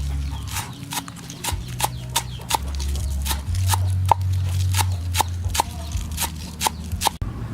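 Sharp, evenly paced knocks, about three a second, each with a short ringing tone, over a steady low hum; they stop abruptly near the end.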